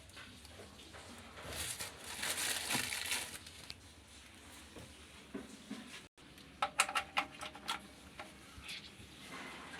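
Rustling and handling noises, then, after a brief break, a quick run of about half a dozen sharp clicks with a short ring.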